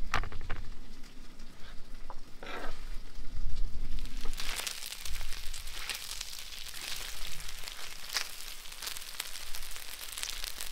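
Diced chicken frying in oil in a wide black wok, sizzling and crackling from about four seconds in. Before that come a few short knocks and rustles.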